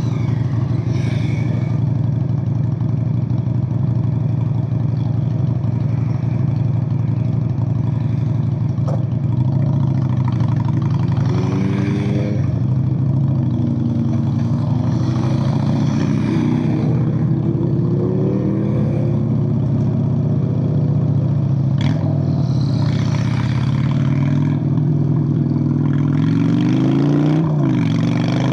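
Straight-piped 1997 Honda Steed VLX 600 V-twin running steadily, with its pitch rising several times as it accelerates: once about eleven seconds in, again a few seconds later, and once more near the end.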